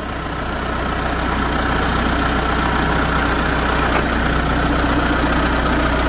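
Diesel engine of a John Deere backhoe loader running, growing louder over the first two seconds as the bucket is lifted and the machine creeps forward, then holding steady, with a steady high whine over the low engine hum.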